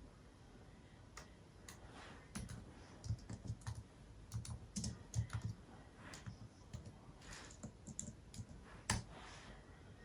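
Irregular light clicks and taps with soft low knocks in between, busiest in the middle.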